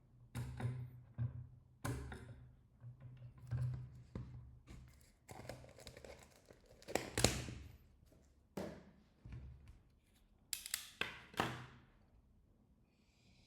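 Irregular clicks, taps and short scraping or rubbing noises of hands and small tools working on a phone's frame, cleaning the area where the screen sits with isopropyl alcohol.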